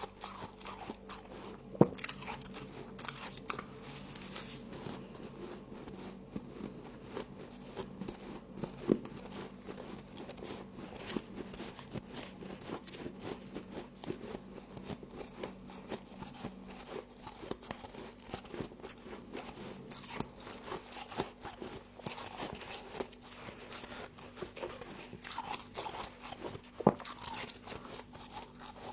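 Close-up crunching and chewing of a mouthful of frost: a continuous dense crackle of small crunches, with a few much louder sharp bites, one about two seconds in, one about nine seconds in and one near the end.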